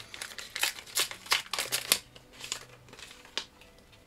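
Plastic wrapper of a McDonald's Pokémon trading-card pack crinkling and tearing as it is pulled open by hand: a quick run of crackles over the first two seconds, then a few fainter rustles.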